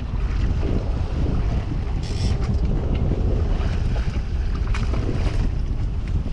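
Steady wind buffeting the microphone over choppy water around a small boat, with a brief hiss about two seconds in.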